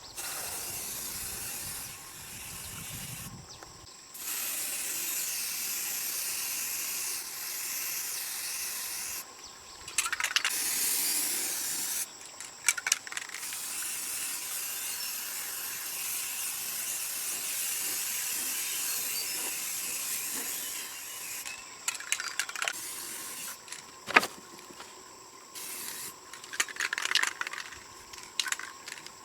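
Hissing spray in several long bursts that start and stop, with a few clicks and rattles between them.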